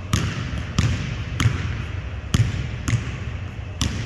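Basketball dribbled on a hardwood gym floor while the player moves: about six bounces, roughly one every 0.7 s, in a large gym.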